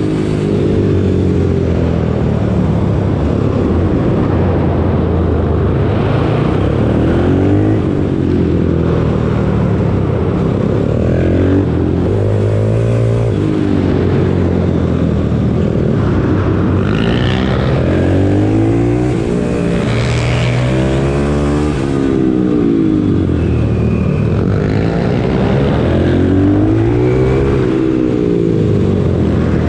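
Pit bike engine heard on board, revving up and easing off again and again, its pitch rising and falling every few seconds.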